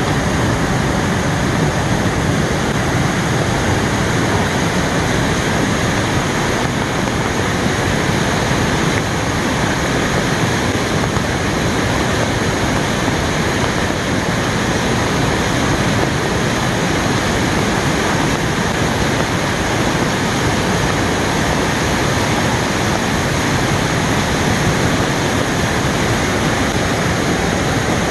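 Waterfall running high after heavy rain: a loud, steady rush of falling water.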